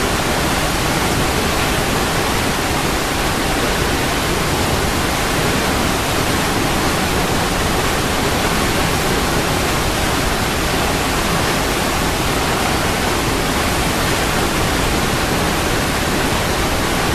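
Waterfall: water pouring in a loud, steady, unbroken rush, with no single splashes standing out.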